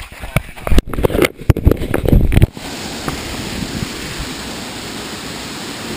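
Loud, irregular splashing and knocks close to the microphone for about two and a half seconds, then cutting to the steady rush of a waterfall.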